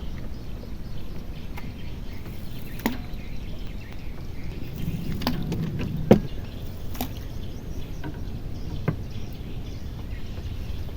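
A handful of sharp knocks and clicks, the loudest about six seconds in, over a steady low rumble of outdoor background noise.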